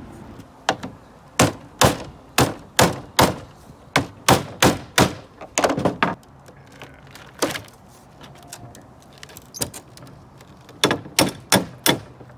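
Rubber mallet knocking on an aluminum window frame in quick runs of sharp thunks, tapping the frame off a double-pane glass unit. A dense run of about a dozen blows in the first six seconds, a few lone blows, then four more in quick succession near the end.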